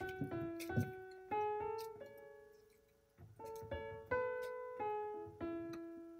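Background piano music: a gentle melody of single sustained notes that fade away, with a short pause about halfway through.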